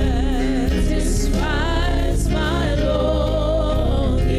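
Gospel song sung by a small group of women into microphones, holding long notes with vibrato, over live band accompaniment.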